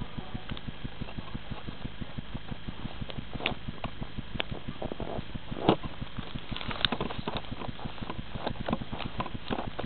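Camera handling noise: the camera rubs and knocks against a gloved hand and jacket fabric, with sharper knocks about halfway through. Under it runs a fast, steady low ticking.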